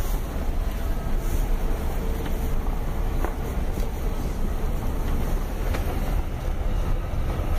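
Cabin noise of a Jeep Grand Cherokee driving along a dirt and gravel wash: a steady low rumble of tyres and engine, with a few faint clicks.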